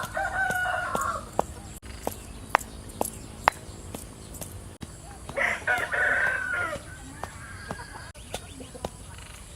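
A rooster crowing twice: one crow right at the start and another about five seconds in, each lasting a second or more. Scattered sharp taps are heard in between.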